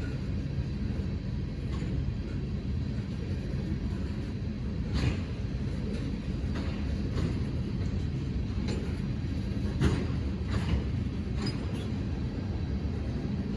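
A train rolling past: a steady low rumble with a few sharp metallic clanks at irregular intervals.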